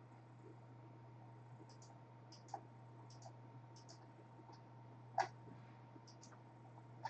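Computer mouse clicking, a dozen or so short clicks, some in quick pairs like double-clicks, with a louder click about five seconds in. A faint steady low hum runs underneath.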